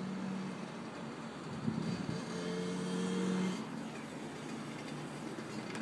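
A motor running with a steady low hum. It fades about half a second in and comes back from about two to three and a half seconds. Brief rustling near the end.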